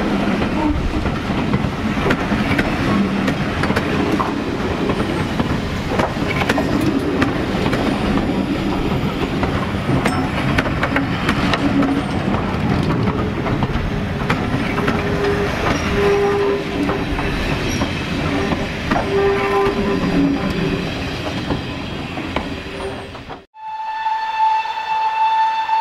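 Passenger coaches rolling past close by: a steady rumble of wheels with the clickety-clack of rail joints. After a sudden cut near the end, a GWR Manor-class steam locomotive's whistle sounds one long, steady note.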